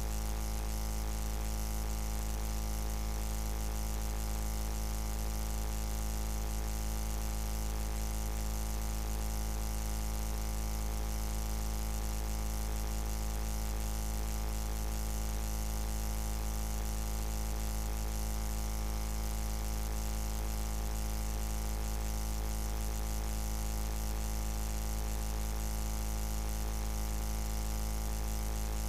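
A steady low hum with a buzz over it, unchanging in pitch and level throughout.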